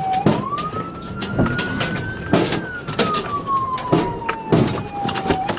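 Police car siren wailing, its pitch rising slowly for about two and a half seconds and then falling slowly. Under it run vehicle noise and a string of irregular knocks and thumps.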